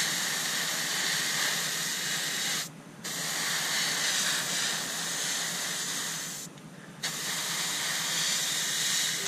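Fine-tip airbrush spraying flat red paint, a steady hiss of air and paint. The trigger is released twice for a moment, about a third and two-thirds of the way through.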